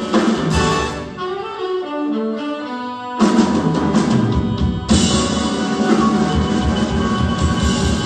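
Jazz big band of saxophones, trombones, trumpets, piano, bass, guitar and drums playing live. A lighter passage of moving horn lines gives way about three seconds in to the full band with drums.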